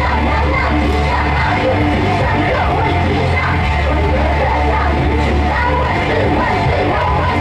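Loud music with a heavy, steady bass and a singing voice over it, the beat for the dancing.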